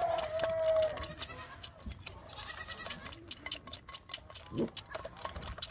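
Bottle-fed kid goat sucking on a bottle nipple: a run of quick, short clicking sucks. A brief high-pitched animal call sounds right at the start.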